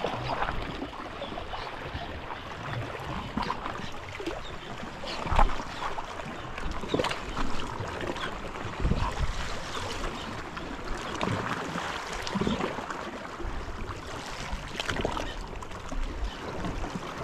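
Sea water lapping and sloshing against a rocky shore, with scattered small clicks and knocks and one louder knock about five seconds in.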